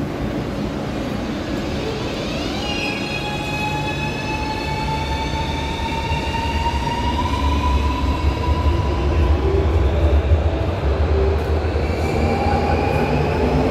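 Cercanías electric commuter train's traction motors whining: a set of whining tones sweeps up in pitch about two to three seconds in, then holds and slowly climbs. Underneath is a low rumble of the train that grows louder in the middle.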